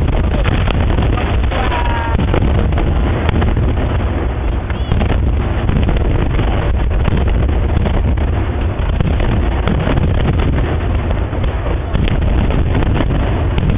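Fireworks going off in a dense run: many overlapping bangs over a steady low rumble, with wind noise on the microphone. A short whistle sounds about two seconds in.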